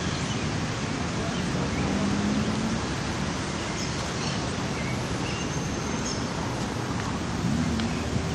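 Steady outdoor city ambience: an even hiss of distant road traffic, with a few faint, short, high chirps.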